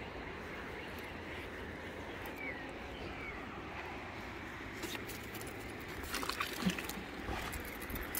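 Steady riverside outdoor ambience with a few faint high chirps. About six seconds in, a short cluster of rattling and splashing noises as a fishing magnet on its rope is thrown back into the river.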